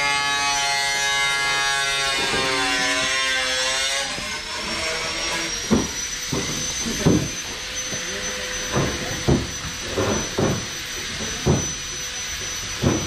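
Workshop power tools. A motor runs with its pitch wavering up and down for the first few seconds, then a high whine rises and holds steady from about four seconds in, with irregular sharp knocks through the rest.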